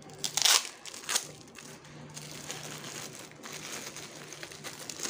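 Newspaper and plastic packing wrap crinkling and rustling as a bundle of rooted plant cuttings is handled and pulled out of it, with two louder crackles in the first second or so, then steady rustling.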